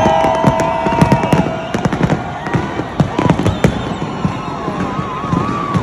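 Fireworks going off in quick succession: many sharp bangs and crackles, with long whistling tones over them in the first second or so and a warbling whistle near the end.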